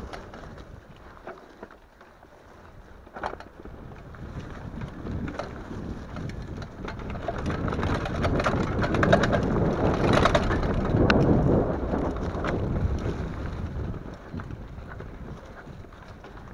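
Mountain bike riding down a dirt singletrack: tyre noise on the dirt with rattles and knocks from the bike, louder in the middle and easing near the end.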